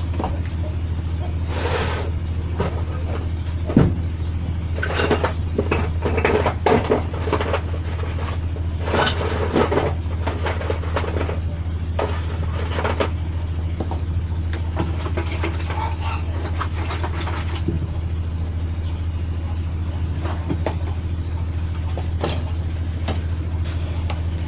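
Small metal engine parts clicking and clinking as they are handled and fitted, in irregular bursts, over a steady, loud, low mechanical drone.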